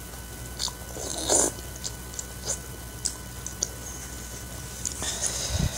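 Close-up mouth sounds of someone eating Samyang instant noodles in soup: a wet slurp of noodles about a second in, then chewing with small sharp mouth clicks. A low thud comes near the end.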